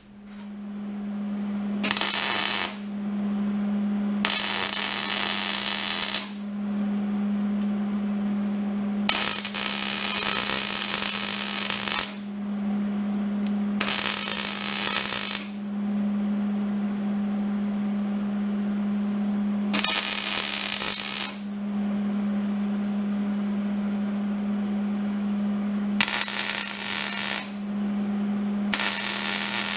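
MIG welder laying short beads on steel splice plates: seven separate bursts of arc sizzle, each about one to three seconds long, start and stop sharply over a steady low hum.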